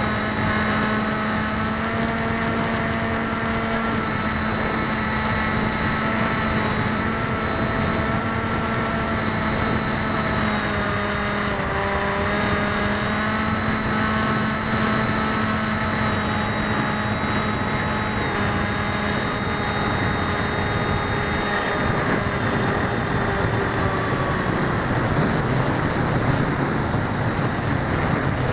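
Electric motors and propellers of an FPV RC aircraft heard from an onboard keychain camera: a steady multi-tone whine over gusty wind noise, the pitch shifting a little as the throttle changes. The propellers are unbalanced.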